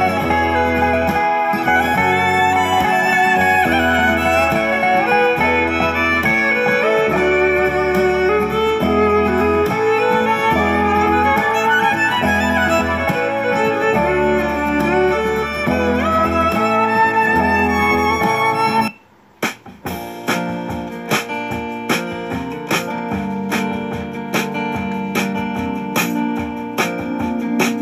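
Instrumental background music. About two-thirds of the way in it cuts off for a moment and a different piece with quick, regular plucked notes begins.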